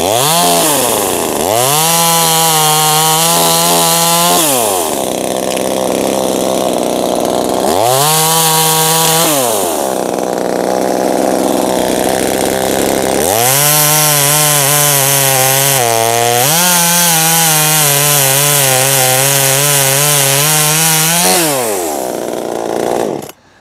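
Buko 26cc two-stroke petrol chainsaw with a 10-inch bar cutting through a small tree trunk near the ground. The engine revs up from idle three times, the third run at full throttle the longest with a brief dip partway, and drops back to idle between cuts. About a second before the end it cuts off suddenly as the saw is switched off.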